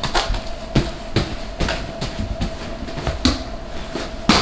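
A toddler's footsteps and thumps on foam play mats and soft climbing blocks, irregular, with a louder thud near the end, over a faint steady hum.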